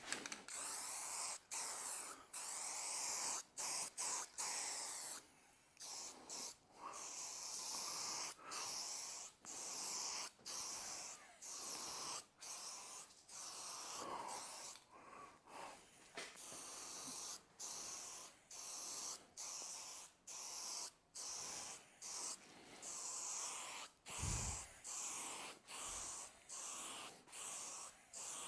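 Aerosol spray-paint can hissing in many short bursts with brief breaks between them. Two low thuds come near the end.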